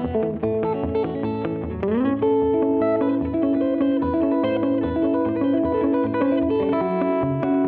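Guitar music: a lead guitar holding long notes over a lower bass line, with one note sliding up in pitch about two seconds in.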